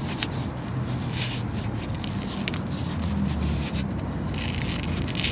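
A rubber sandal being bent and pressed by hand, giving scattered soft crackles and scrapes over a steady low rumble.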